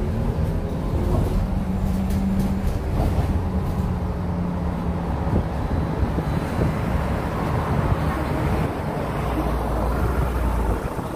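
City bus running, heard from inside the cabin: a steady engine drone and road noise, with a low hum and a few light rattles.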